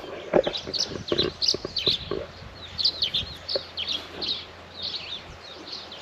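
Small birds chirping repeatedly in short high calls, with a few soft knocks in the first couple of seconds.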